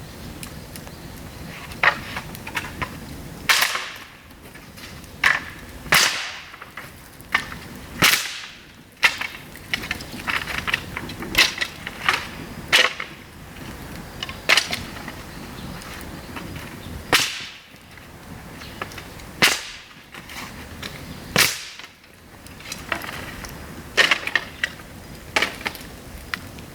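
Dry bamboo burning in a pail-can fire, giving loud, sharp cracks and bangs every second or two at an irregular pace over a steady fire hiss: the bamboo bursting at its sealed nodes as the trapped air and moisture heat up.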